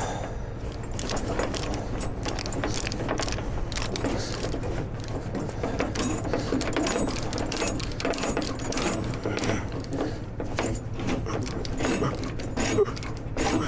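Steel tie-down chain clinking and clanking, with irregular metallic clicks as an extra chain binder is hooked on and tightened to secure a load. A truck engine idles underneath.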